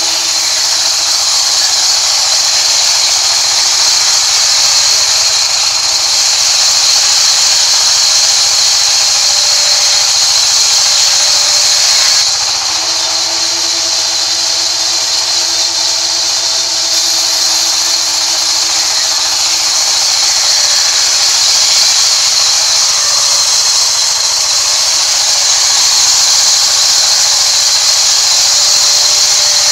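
Sawmill band saw running and cutting through a rain tree log: a loud, steady high-pitched hiss and whine from the blade in the wood. The sound shifts abruptly about twelve seconds in.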